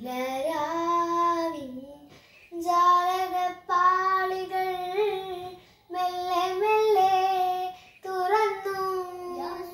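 A young girl singing solo with no accompaniment, holding long notes in phrases separated by short pauses for breath.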